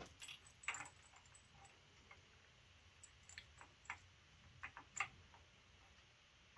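Faint, irregular light clicks and taps of metal parts and tools being handled on the engine's timing set, a dozen or so sharp clicks spread unevenly, the loudest about five seconds in.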